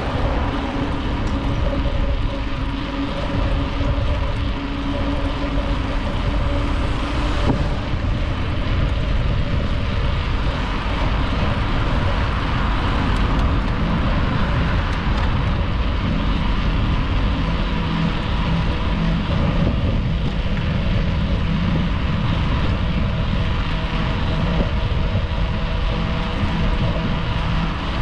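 Wind buffeting an action camera's microphone, mixed with bicycle tyre noise on asphalt, as the bike rides along a street: a loud, steady, even rush without breaks.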